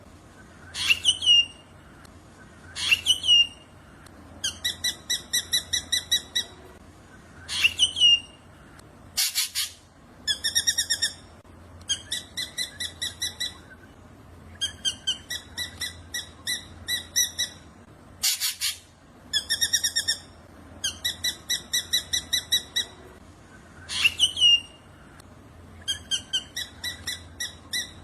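Black drongo calling: rapid runs of short repeated notes, about eight a second, alternating with single downward-slurred whistles. A sharp, loud call comes twice, and the whole sequence repeats about every nine seconds.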